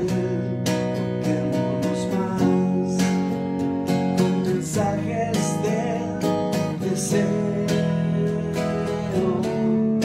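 Electric guitar being strummed, a rhythmic chord pattern with sustained ringing notes.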